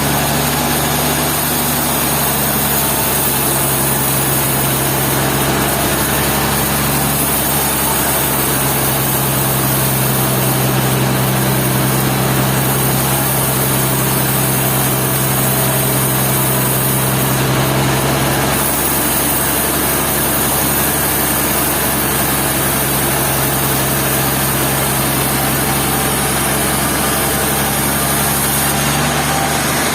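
Sawmill machinery running steadily: a constant loud engine-like hum over broad mechanical noise, with a slight rise in pitch near the end.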